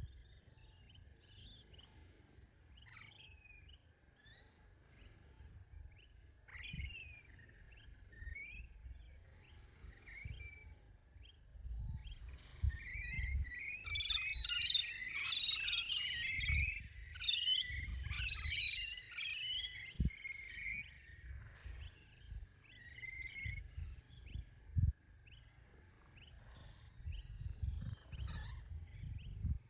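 Wild birds chirping in short, repeated calls, with a dense burst of loud chattering calls in the middle. Low rumbles of wind on the microphone come and go underneath.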